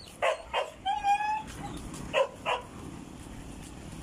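A dog barking, two quick barks near the start and two more about two seconds in, with one drawn-out yelp about a second in.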